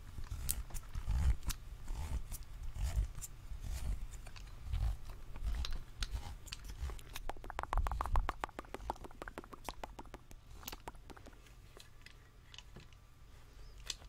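White plastic handheld can opener being cranked around the rim of a metal can close to the microphone, cutting the lid: repeated sharp clicks with low handling knocks, and a fast run of clicks about seven seconds in. It quiets down near the end.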